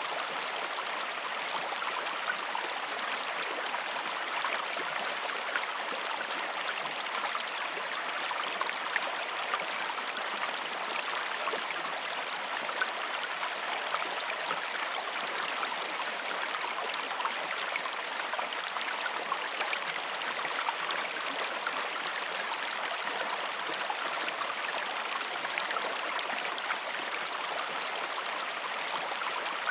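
Stream water flowing steadily over rocks: a constant rushing babble with small splashes and no change in level.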